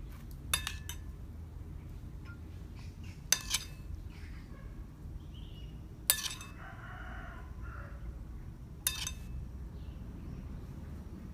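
Metal kitchen utensils clinking sharply against cookware about five times, at irregular intervals, each clink ringing briefly. A rooster crows once in the background about six seconds in.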